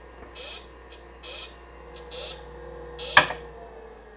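IBM PC XT running with short high electronic blips from its PC speaker, repeating about once a second over a steady hum, then a single loud sharp click a little after three seconds in as the large power switch on the side of the case is flipped off.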